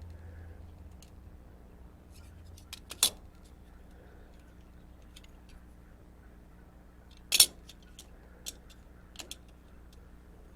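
Sharp metallic clinks of steel pieces being handled, a few scattered strokes with the two loudest about three seconds in and seven and a half seconds in, over a steady low hum.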